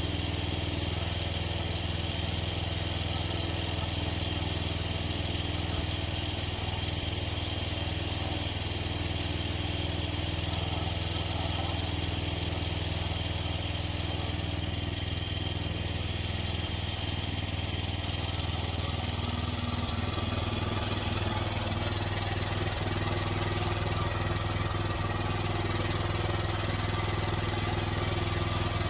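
Engine of a Norwood Frontier OS23 portable bandsaw mill running steadily, its note shifting slightly about two-thirds of the way through.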